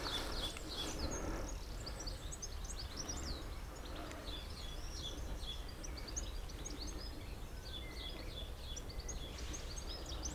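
Outdoor garden ambience: small birds chirping and twittering throughout, over a faint steady low rumble. No ignition pop or bang is heard.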